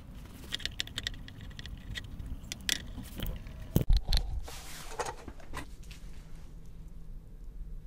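Wooden spoon stirring and scraping a potassium nitrate and sugar mixture in a stainless steel pot, in irregular clicks and scrapes with one louder knock about halfway. The stirring stops about three quarters of the way through.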